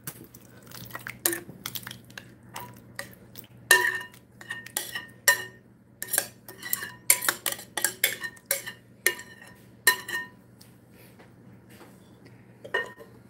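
A spoon scraping and clinking against a glass mixing bowl as a thick, creamy pot pie filling is spooned out into a glass pie dish. The clicks are irregular, some ringing briefly like glass, and they thin out near the end.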